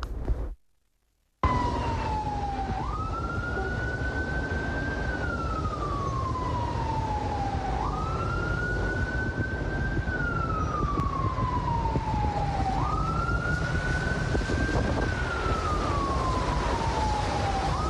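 Emergency vehicle siren on a slow wail. It rises quickly, climbs a little more, then falls slowly, repeating about every five seconds for three full cycles. Under it runs a steady rush of traffic and water noise.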